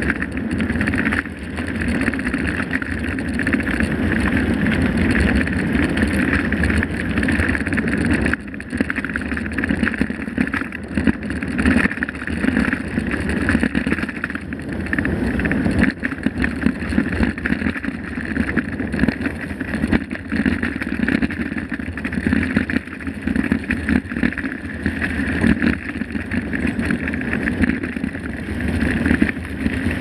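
Mountain bike riding over a dirt track: tyres rumbling and the bike rattling over the bumps, mixed with wind on the microphone, steady throughout with brief lulls about a second in and about eight seconds in.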